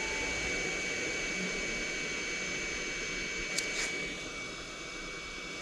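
Hot air gun blowing steadily on a COF bonding area to soften it for removal: an even rushing hiss with a thin, steady high whine. Two faint clicks come about three and a half seconds in.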